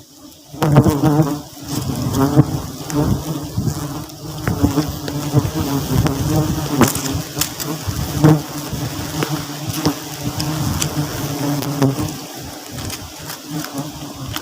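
A swarm of bees buzzing loudly, a dense low drone that starts abruptly about half a second in, with scattered sharp ticks throughout.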